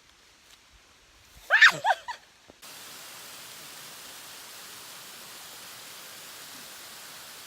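A short, loud human voice sound gliding up and down in pitch, then a sudden switch to the steady, even rush of falling water from a waterfall.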